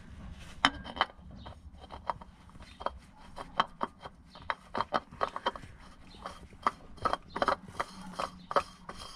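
Irregular sharp clicks and light taps of hand tools at work, a few a second, coming faster in the second half.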